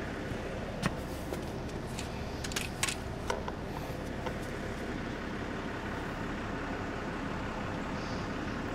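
Steady low background hum with a handful of light clicks and taps from handling the moving camera, between about one and three and a half seconds in.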